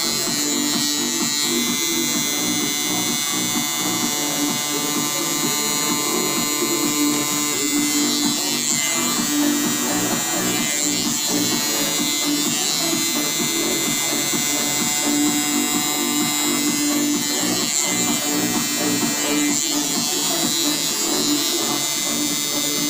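Tattoo machine buzzing steadily while lining a design on an EVA foam practice sheet with a 7RL liner needle.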